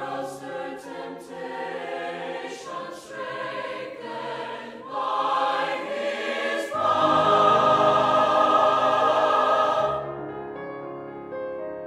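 Mixed choir singing a sacred choral anthem in sustained chords. It swells to its loudest about seven seconds in and releases near ten seconds, leaving softer sustained notes.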